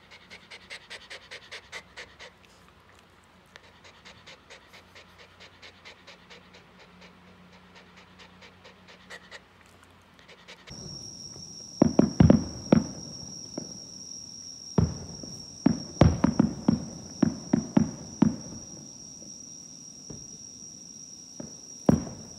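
A mame-shiba panting, about three breaths a second. About ten seconds in, fireworks shells start bursting overhead: a string of loud booms, thickest in the middle, with one more near the end. A steady high trill of insects runs behind the booms.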